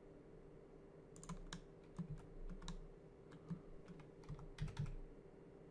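Computer keyboard keys and mouse buttons clicking, a scattering of light irregular clicks with a cluster about a second in and another near the end, over a faint steady hum.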